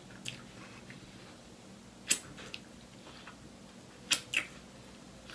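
Close-up eating sounds of sauce-coated fried chicken: a few short, sharp wet bites and mouth smacks, one about two seconds in and two quick ones about four seconds in, over a faint steady hum.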